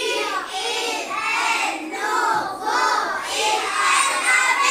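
Children's voices in chorus, chanting or reciting together in a sing-song way without a break.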